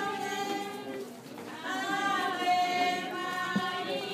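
A group of voices singing together in long, held notes.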